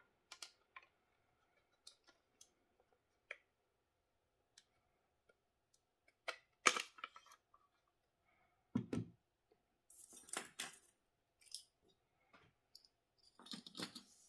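Scattered small clicks and taps of airsoft replica parts being handled as the hop-up unit and metal inner barrel assembly are slid into the upper receiver. There is a duller knock about nine seconds in, and short runs of clicks near the middle and again near the end.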